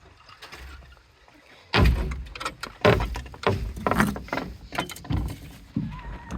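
A series of knocks and thumps, starting about two seconds in, with several heavy hits over the next few seconds.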